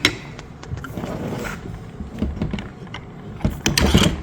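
Metal parts of a hydraulic cable cutter clicking and knocking together as the blade assembly shaft is worked through the aligned holes of the head and blades. There is a brief scrape, and a cluster of louder knocks near the end.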